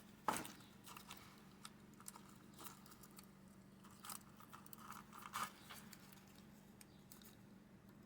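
Faint, scattered scrapes and small clicks of an X-Acto knife blade being worked carefully around the front skin of a tin toy, over a low steady hum.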